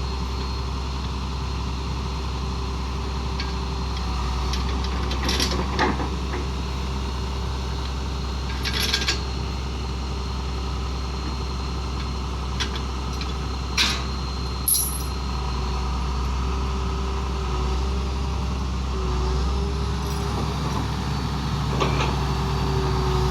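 Vehicle engine running steadily at low revs, a constant low rumble, with about half a dozen short sharp clanks and rattles over it.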